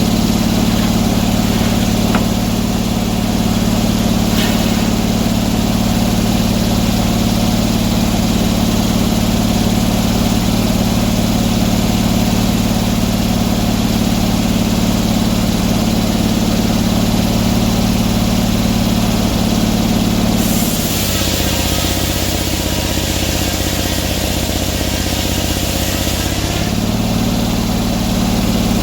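Portable sawmill's engine running steadily. From about 20 to 27 seconds its pitch drops and a high hiss joins in, as the engine takes a load, then the engine returns to its earlier pitch.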